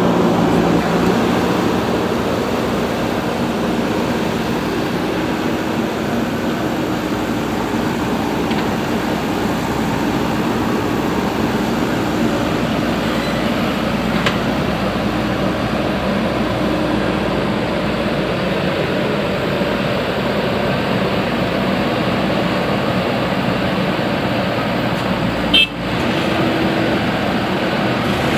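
Diesel engines of a backhoe loader and a tractor running steadily under work. Near the end there is one brief click and a short break in the sound.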